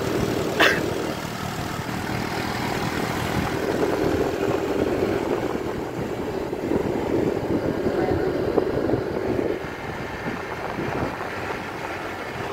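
Motor scooter engine running steadily while riding, with wind noise on the microphone. A short high squeak comes about half a second in.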